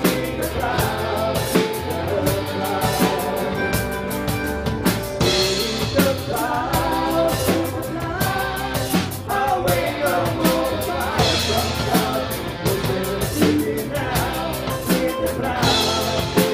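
Live rock band playing: drum kit keeping a steady beat under electric bass, acoustic and electric guitars.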